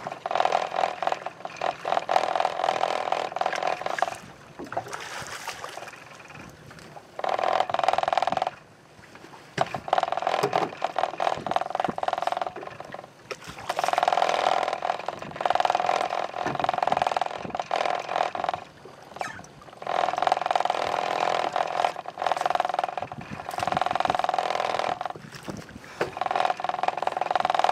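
Spinning reel working under the load of a hooked sea bass. It runs in repeated bursts of one to four seconds with short pauses between them, a steady whirring buzz.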